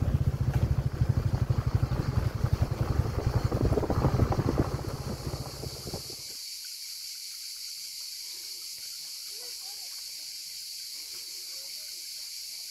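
Motorcycle engine running as it rides along a forest track, a fast even pulsing that fades over the first five seconds. At about six seconds it drops away abruptly, leaving a steady high chirring of insects.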